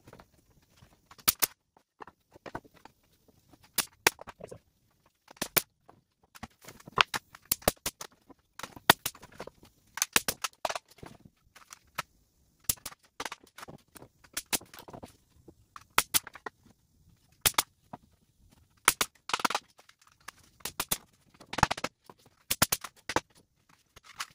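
Pneumatic framing nailer firing nails through the plates into 2x4 studs. It gives sharp single shots, often two in quick succession, about two dozen in all, with pauses between.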